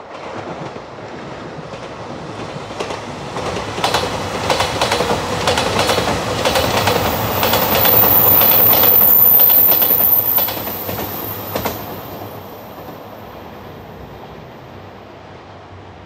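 JR Shikoku 2700 series diesel limited express train passing. Its rumble builds up, then comes a quick run of wheel clicks over the rail joints and a thin high squeal as the cars go by. It is loudest about eight to ten seconds in and then fades away.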